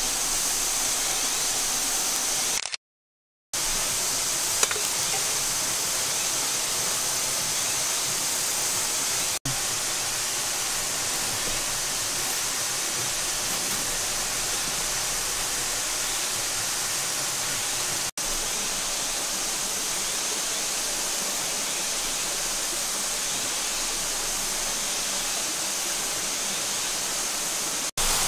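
Flowing water rushing steadily, like a nearby stream, with no crackle or pops; it drops out briefly a few times.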